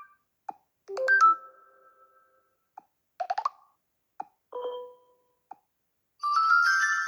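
A series of short notification chimes from a TCL Tab 8 LE tablet's speaker, each a different tone. One comes about a second in, a quick cluster of notes near three seconds, another near five seconds, and a brighter rising run of notes near the end that rings on. Faint short blips fall between the chimes.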